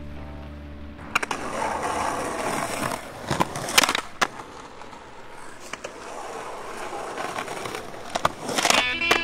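Skateboard rolling on pavement with a steady wheel rumble, broken about three seconds in by a few sharp board clacks as the tail pops and the board lands. A couple more clacks come near the end.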